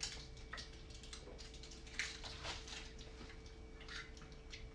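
Quiet room with a few faint clicks and crinkles of small plastic communion cups being handled and drunk from, the clearest about two seconds in, over a faint steady hum.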